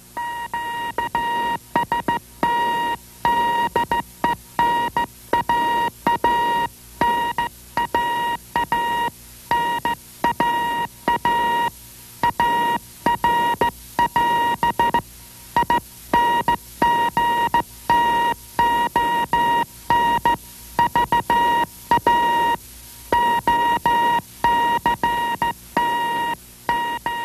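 Spark transmitter sending Morse code, heard on a receiver as a raspy, buzzing high tone keyed on and off in dots and dashes.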